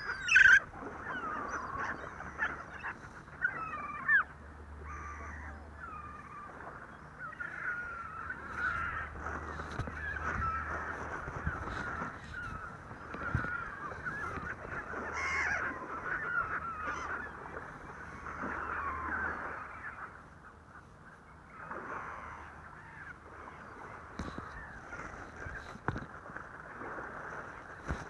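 A flock of birds being fed, calling over and over in many short, overlapping calls.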